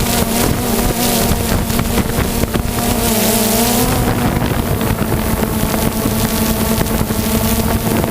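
Aircraft engine running with a loud, steady drone, its pitch wavering for the first few seconds and then holding level, with wind on the microphone.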